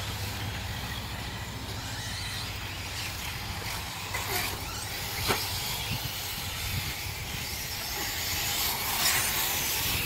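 Electric RC off-road buggies racing on a dirt track, their motors whining faintly over tyre and track noise, with a steady low hum underneath and a sharp knock about five seconds in.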